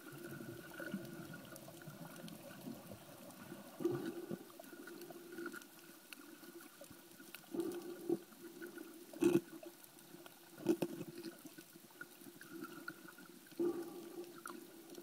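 Muffled underwater sound picked up by a camera held under the water: a faint steady hum with water swishing and a few irregular dull knocks.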